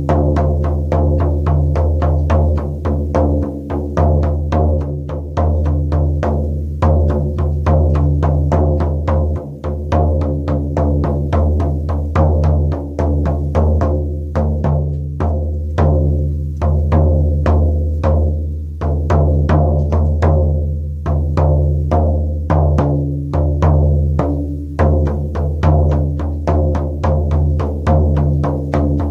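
Shaman's frame drum beaten in a steady, even rhythm of a few strokes a second, each stroke ringing deep and low.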